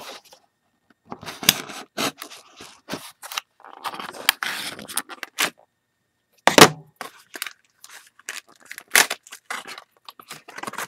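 A plastic blister pack of trading cards being opened by hand: irregular crackling, scraping and tearing of stiff plastic, with a loud sharp click about six and a half seconds in.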